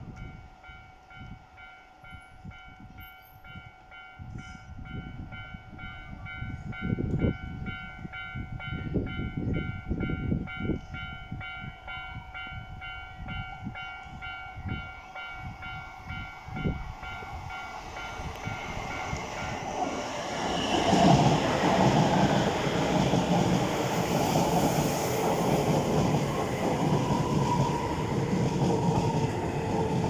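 A level crossing warning bell rings with a rapid pulsing tone. From about two-thirds of the way in, a Keisei 3000 series electric train comes up and passes at speed without stopping, and its running noise and wheels on the rails grow loud and drown the bell.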